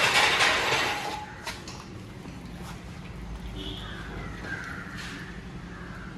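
A burst of noisy workshop clatter in the first second, then a few light metal taps at the rear axle housing as a new axle oil seal is set in place. Crows cawing in the background.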